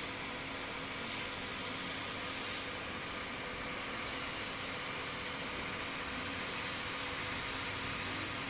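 High-pressure spray gun on an engine-driven HTP sprayer, its water jet giving a steady hiss over the steady hum of the sprayer. The hiss swells briefly a few times.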